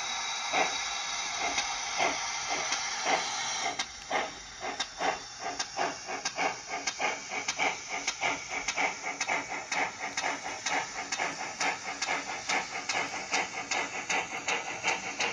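Steam-locomotive sound from the Wheeltappers LT Pannier sound file, played by an ESU LokSound V4 Micro DCC decoder through the speaker of a Bachmann L92 London Transport pannier tank model. A steady steam hiss runs with the chuffs and cuts out about four seconds in; after that the exhaust chuffs speed up from about two a second to about four a second as the engine pulls away.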